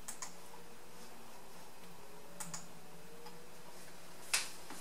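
A few clicks from working a computer's mouse and keyboard: two quick pairs of soft clicks, then a sharper click near the end, over a faint steady hum.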